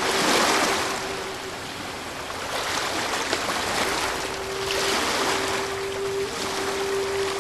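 Ocean waves washing in, swelling twice, over a steady high hum held underneath.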